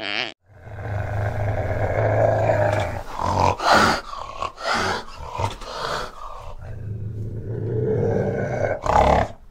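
Fishing cat growling: a long low growl, then a run of shorter snarls about halfway through, then another long growl near the end.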